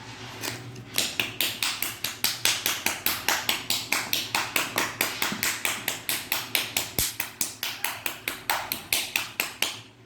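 Rapid, evenly spaced tapping, about four to five sharp taps a second, starting about a second in and stopping near the end.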